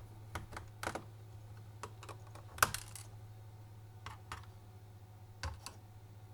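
Irregular light clicks and taps of a screwdriver working small screws out of a laptop's plastic case, the loudest about two and a half seconds in, over a steady low hum.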